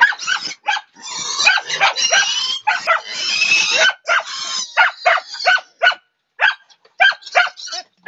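Piglet squealing loudly as it is grabbed and held: a long shrill squeal, then a quick run of short squeals.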